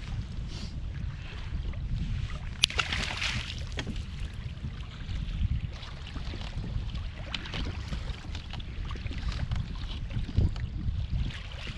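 Wind buffeting the microphone over choppy bay water lapping against a kayak hull, a steady low rumble. A sharp click comes about two and a half seconds in, followed by a short hiss.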